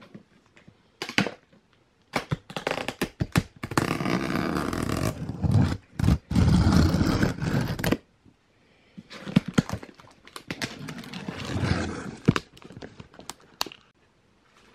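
Packing tape and plastic covering being cut and pulled off a cardboard box: scraping and tearing against the cardboard, with sharp knocks on it. The tearing runs loud and long through the middle, then comes again more raggedly near the end.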